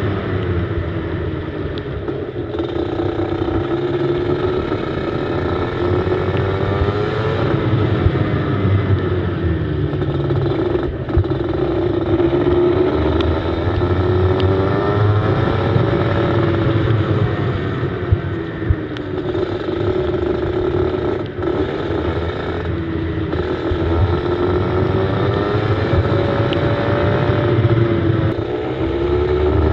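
Go-kart engine heard from a camera mounted on the kart, its revs climbing and dropping over and over as it accelerates out of corners and lifts off into them.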